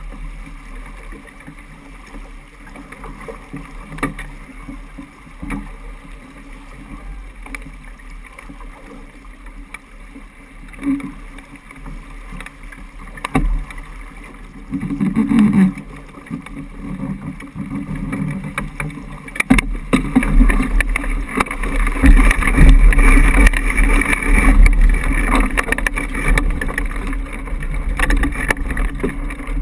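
Water rushing along the hull of a sailboat heeled in a gusty breeze, with wind buffeting the microphone and a few sharp knocks from the deck gear. The wind rumble grows much louder about two-thirds of the way in.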